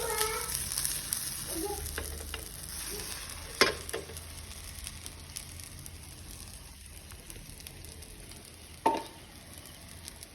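Pancake batter sizzling in a hot pan, the sizzle slowly dying down, with two sharp knocks of a utensil on the pan, about three and a half seconds in and near the end.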